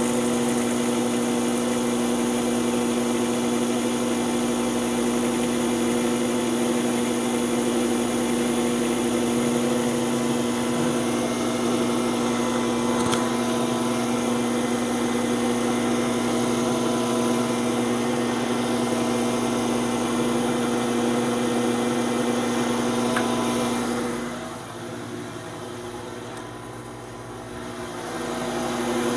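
Benchtop drill press motor running with a steady, even hum. About three-quarters of the way through the hum falls away for a few seconds, then comes back up near the end.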